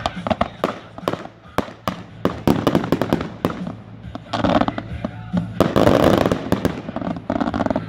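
Consumer fireworks going off: a rapid, irregular run of sharp pops and bangs, joined about four seconds in by a dense crackling hiss from ground fountains and bursting stars, loudest around six seconds.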